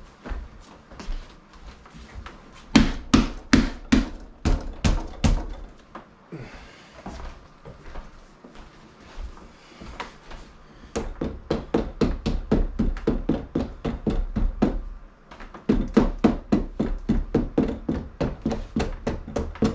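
Hands knocking and thumping on the windshield glass and its rubber seal as they are worked into the frame. It comes in two runs of rapid knocks: a louder run of about two a second a few seconds in, and a faster run of three or four a second through the second half.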